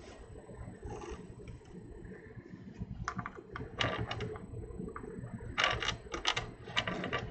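Scattered sharp clicks and light clatter, bunched into quick clusters in the second half, from a motherboard being handled and worked with a soldering iron while its capacitors are desoldered. A low steady hum runs underneath.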